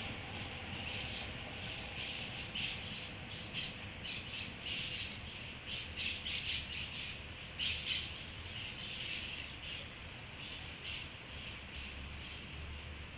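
Birds calling in a rapid, irregular series of short calls, over a faint low rumble from the departing ALCo DL535 diesel locomotive.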